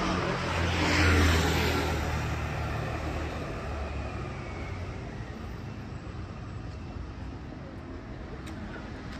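A motor vehicle passes close by about a second in. Its engine hum and road noise swell and then fade away over the next few seconds, leaving steady background street traffic.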